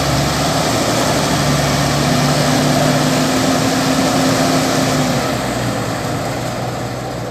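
Heavy farm-machinery engine running hard under load, during the pull to free a harvester stuck in mud; its steady note eases off about five seconds in.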